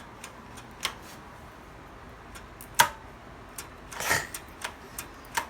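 A few sharp clicks and knocks, the loudest about three seconds in, with a short rustle of handling around four seconds in.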